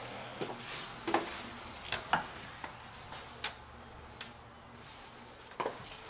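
Scattered clicks and knocks of a person walking in through a house's front door, the loudest about two seconds in, with faint short high chirps in between.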